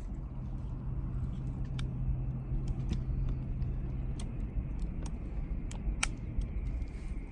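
Wood fire crackling with scattered sharp pops, about a dozen of them, over a steady low rumble; a low steady hum fades out about four seconds in.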